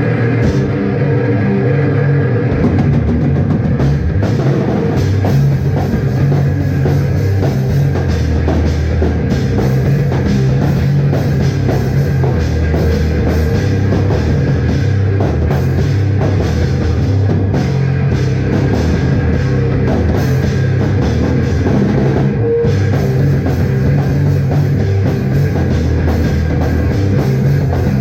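Live rock band playing loud and steady, with drum kit and electric guitar.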